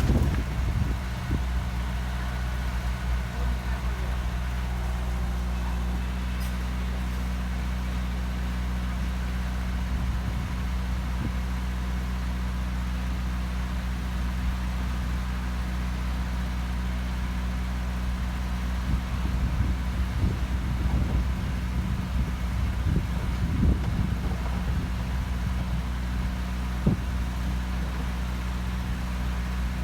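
Diesel engine of a heavy earthmoving machine running steadily at a low, even speed. About two-thirds of the way in there is a stretch of irregular knocks and clatter, and one sharp knock near the end.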